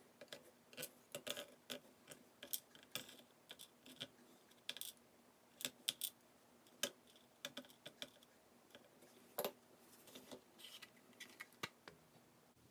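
Faint, irregular small clicks and taps of lock pins, springs and a tool being handled as a Goal S pin-tumbler lock is taken apart.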